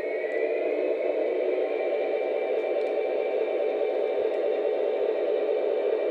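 Lionel O-gauge Union Pacific Veranda gas-turbine locomotive running past, its onboard speaker playing a steady turbine rumble with a high whine that rises slightly about half a second in.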